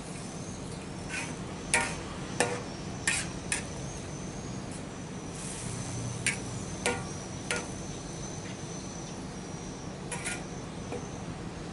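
Metal spatula clinking and scraping against a steel wok as food is stirred, in about eight sharp, irregular strikes. A steady high insect trill runs underneath.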